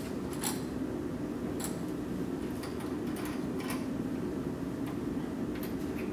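Small metal clicks and taps of wire ring terminals and nuts being fitted and hand-tightened onto the terminal studs of a conductor-rail end feed, about seven irregular clicks over a steady low hum.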